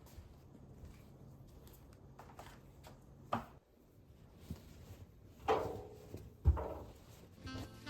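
Quiet room sound with a few scattered knocks and clacks of household objects being handled, the loudest about five and a half and six and a half seconds in.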